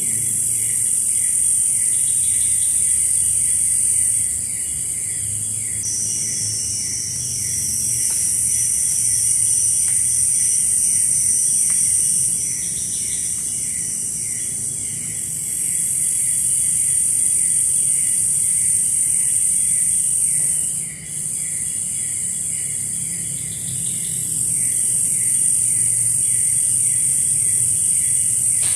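Tropical forest insect chorus of cicadas and crickets. A loud, high, shrill buzz swells for several seconds at a time and eases off briefly between swells. Under it a lower chirp repeats steadily about twice a second.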